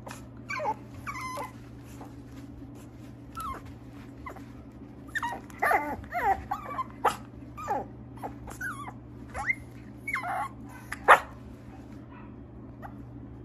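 Mixed-breed puppy whining and yipping in short, high calls that slide in pitch, thickest in the middle, with one sharper yap a couple of seconds before the end. A steady low hum runs underneath.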